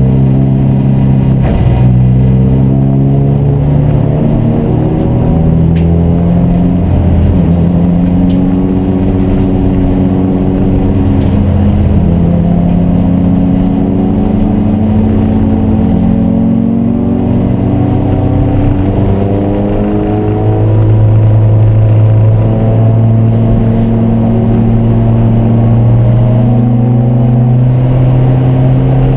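Racing car engine under load, its revs climbing slowly for several seconds at a time and dropping back a few times as it shifts gear or lifts.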